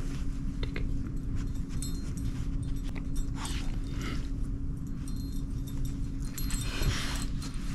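Rustling and handling noise from a cloth Christmas stocking and a plush toy being pulled out, in short rustles about three and a half seconds in and again near the end, over a low steady hum.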